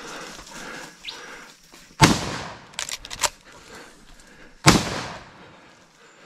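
Two rifle shots from an old Winchester .30-30 lever-action, about two and a half seconds apart, each with a fading echo, and a few quick metallic clicks between them as the lever is worked. A bird chirps briefly before the first shot.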